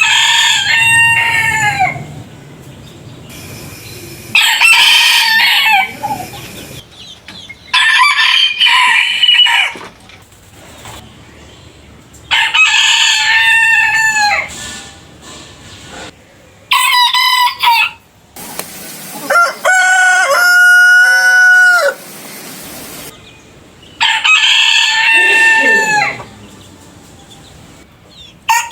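Different roosters crowing one after another, about seven crows, each around two seconds long and ending in a falling tail. The background hiss changes abruptly between crows, as separate recordings are cut together.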